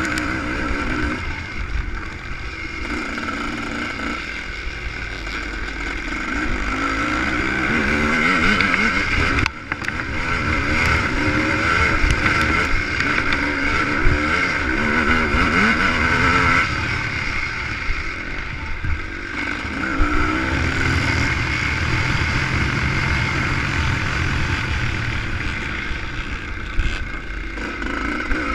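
ČZ two-stroke motocross motorcycle at race pace, heard from on board, its engine revving up and falling back through the gears, with one brief break in the sound about a third of the way in.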